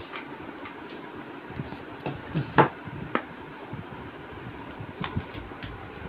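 A knife and a wooden stick knocking and scraping against a metal bowl while rice flour is stirred with hot water into dough: a few scattered clicks and knocks, the loudest about two and a half seconds in.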